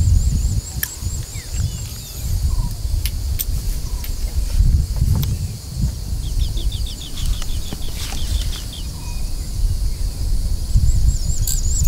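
Outdoor ambience: birds chirping high over a low, uneven rumble, with a quick trill of chirps about six seconds in and a few sharp clicks.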